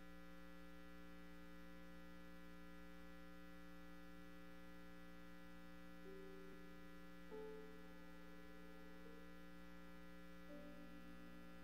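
Faint steady electrical mains hum in the audio feed, with a few faint short tones coming and going in the second half.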